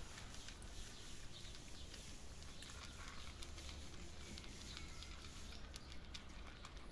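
Several cats crunching dry kibble: faint, scattered small clicks and crackles over a low steady background noise.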